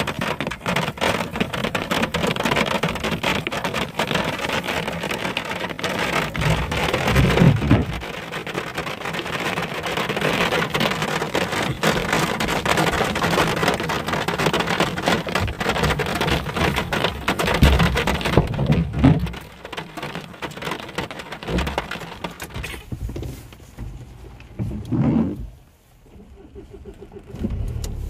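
Heavy rain falling on a car's windscreen and roof, heard from inside the car as a dense hiss of countless drop impacts, with a few short low rumbles. About 23 seconds in it thins to lighter rain.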